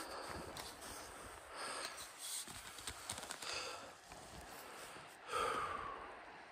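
A walker's breathing and footsteps, with a short, louder breathy voiced sound about five seconds in.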